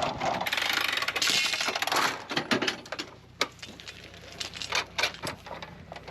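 A rushing hiss for about two seconds, then a run of irregular sharp clicks and knocks.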